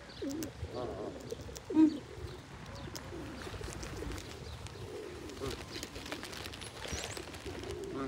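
Feral pigeons cooing: low, wavering coos repeating one after another, with one short louder call about two seconds in.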